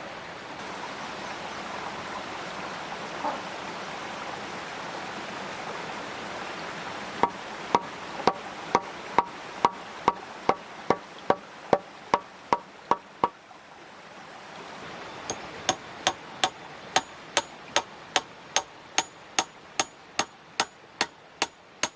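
A steady rushing noise, then a hammer striking repeatedly from about seven seconds in, about two blows a second, each with a ringing note. After a short pause near the middle a second, quicker run of blows starts, ringing higher.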